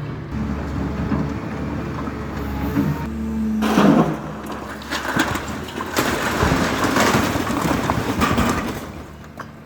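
Demolition machinery running at a low, steady pitch, with crunching and clattering of broken debris from about three seconds in until near the end, where it fades.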